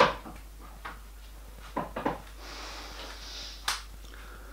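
Sharp metal clicks and knocks of a steel die filer drive assembly being handled in a vice. The loudest comes right at the start as the spring-loaded locking pin on the main drive shaft is released, with a few lighter clicks after it.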